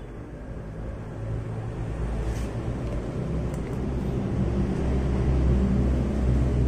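A motor vehicle's engine running at a steady low speed, growing steadily louder, with a few faint clicks.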